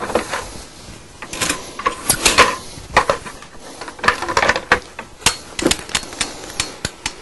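Carpet power stretcher clicking and clacking irregularly as its toothed head is set into the carpet and levered to re-stretch it.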